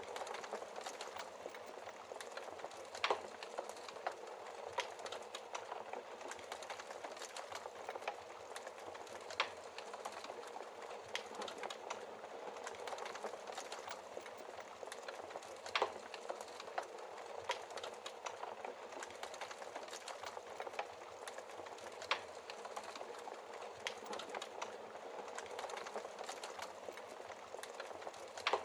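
Wood fire burning in a fireplace: a steady hiss with constant small crackles and an occasional louder pop from the logs.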